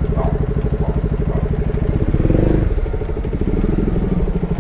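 Motorcycle engine running with a steady, even beat, swelling briefly about two seconds in.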